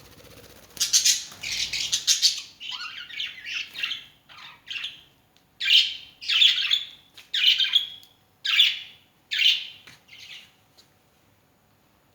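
Pet birds calling: a string of about a dozen harsh, squawking calls, stopping shortly before the end.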